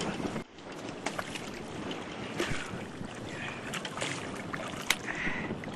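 Water splashing and lapping around a small fishing boat, with scattered sharp clicks and knocks.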